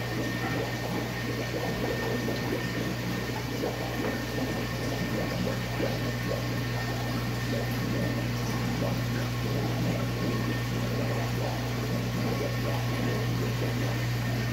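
Aquarium pump running with a steady low hum, over water bubbling and trickling in the tank.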